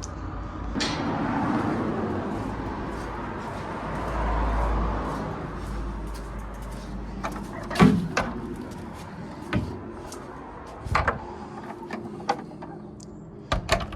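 A rushing noise over the first several seconds, then a series of sharp knocks and clunks, the loudest about eight seconds in.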